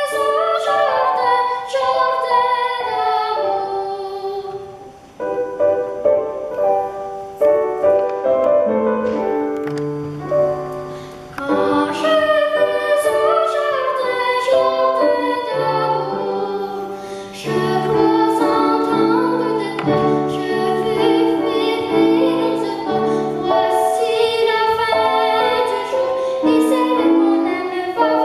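A boy singing a classical solo song in French with piano accompaniment. There is a brief break between phrases about five seconds in.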